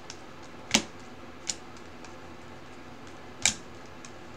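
Bowman Chrome baseball cards being flipped through by hand, giving a few sharp card snaps: two loud ones a little under three seconds apart, with a softer one and faint ticks between, over a low steady hiss.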